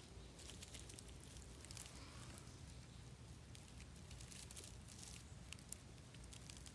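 Near silence: faint outdoor background with a few scattered small clicks and ticks.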